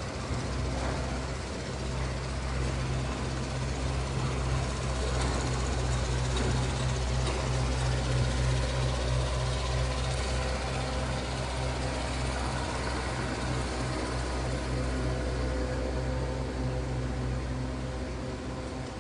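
A steady low mechanical hum, running evenly throughout and swelling slightly in loudness mid-way.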